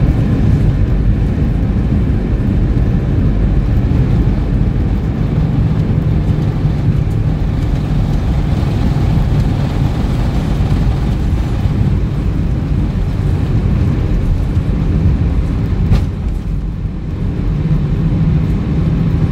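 Airbus A320 cabin noise while taxiing: the IAE V2500 engines running at idle over a steady low rumble of the airframe and wheels. A low hum comes and goes, and there is a single click about 16 seconds in.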